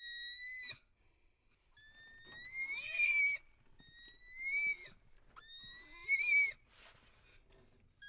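Adult male orangutan making four high, whistle-like squeaks through pursed lips, each rising in pitch, the later ones about a second or more long.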